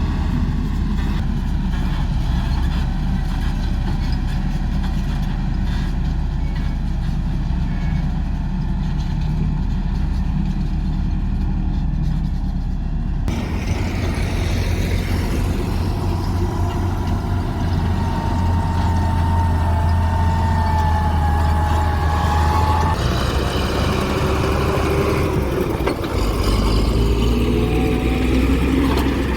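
Heavy diesel road-construction machinery running with a steady low engine hum. About thirteen seconds in, the sound cuts abruptly to another stretch of engine noise, with a wavering whine and some rising tones near the end.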